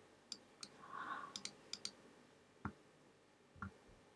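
Faint computer mouse clicks: about six short sharp clicks in the first two seconds, then two softer, duller knocks.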